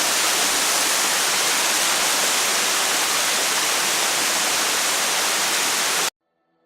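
Rushing water of a waterfall, with water running down the steps beside it: a steady rush that cuts off abruptly about six seconds in.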